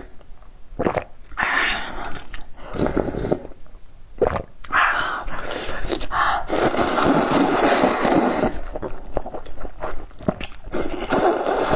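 Close-miked slurping of rice noodles from a bowl of soup, in several separate noisy sucks with chewing between, the longest lasting about two seconds a little past the middle.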